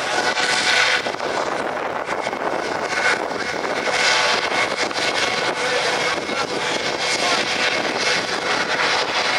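U.S. Coast Guard MH-65D Dolphin helicopter running on the ground with its rotor turning. Its twin turboshaft engines and ducted fenestron tail rotor give a steady whine.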